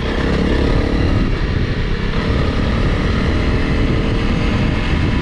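Honda CRF Rally's single-cylinder engine running steadily as the motorcycle is ridden off-road, with a dense low rumble underneath.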